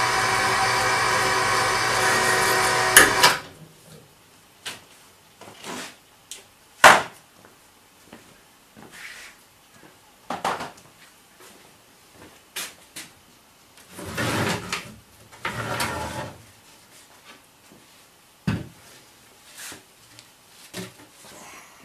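Overhead electric hoist motor running steadily as it lifts a portable generator on a sling, stopping with a clunk about three seconds in. Then scattered knocks and scrapes as sawhorses and a plywood panel are moved about on a concrete floor.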